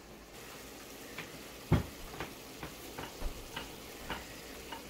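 Wooden rolling pin rolling out rounds of goja dough on a stone countertop: a string of light knocks and taps, with one louder thump a little under two seconds in, over a steady faint hiss.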